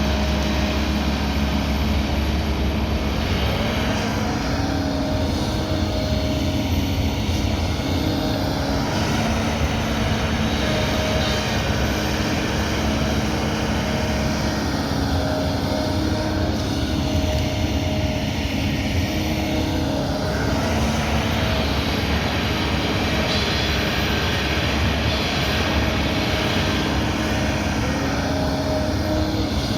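Kobelco 220 excavator's diesel engine running steadily under work, with a hydraulic whine. The sound swells and eases in cycles about every eight to ten seconds as the machine works.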